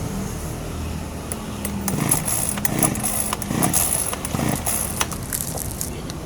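Small two-stroke chainsaw engine running unevenly, surging and sputtering about every second, on a saw that is hard to start because of a stiff cylinder block.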